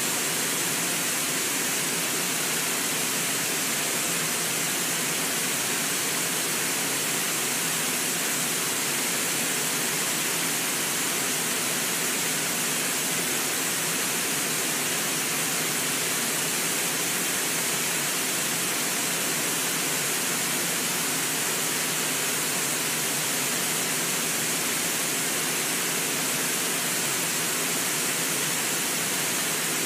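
Waterfall rushing: a steady roar of water pouring over a wide rock ledge, with no changes or other events.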